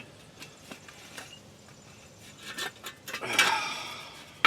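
Small metal brake parts being handled and worked into place, with faint light clicks and then a longer scraping rub about three seconds in.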